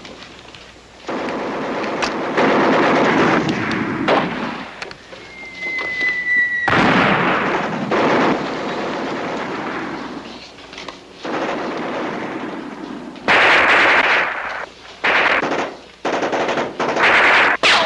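Machine-gun and rifle fire from a TV war-drama soundtrack, coming in long bursts with short lulls. A short high whistle sounds about five seconds in, cut off by a sudden loud burst of fire, and the loudest bursts come near the end.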